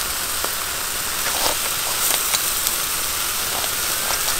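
Sauce-basted crocodile meat sizzling on a grill grate: a steady hiss with scattered pops and crackles.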